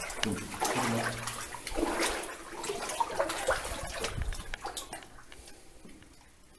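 Footsteps and clothing rustle of people walking along a rough rock tunnel floor, irregular and uneven, fading away from about five seconds in.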